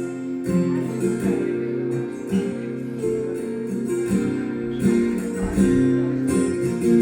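Acoustic guitar strummed through chords, the instrumental introduction to a song before the vocals come in.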